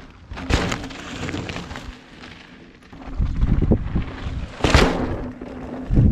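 Mountain bike knobby tyres rolling and scrubbing over a dry dirt trail, with sharp bursts of crunching hiss about half a second in and again near the end, over a low wind rumble on the microphone.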